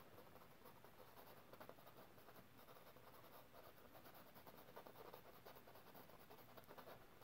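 Faint scratching of a paintbrush working oil paint on a stretched canvas, in short irregular strokes.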